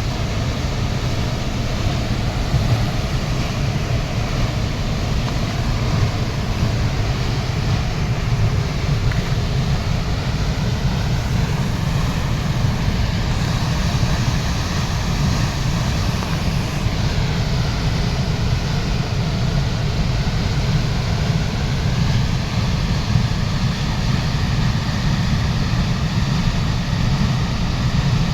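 Waterfall: a steady, loud rush of falling water, deep and even throughout.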